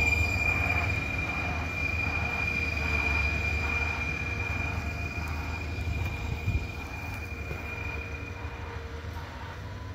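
Road-rail excavator running along the track on its rail wheels, moving away: a steady engine rumble with a steady high whine, both fading gradually, the whine dying out near the end. A single short knock about six and a half seconds in.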